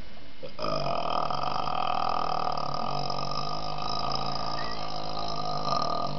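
A man's single long, drawn-out burp, starting about half a second in and held at a steady low pitch without a break.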